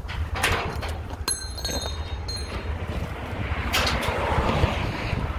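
Ratchet tie-down strap being released from a car on a car-hauler trailer: sharp metal clicks and brief ringing clinks of the ratchet and hook, then the webbing dragging as it is pulled loose near the end. A steady low rumble runs underneath.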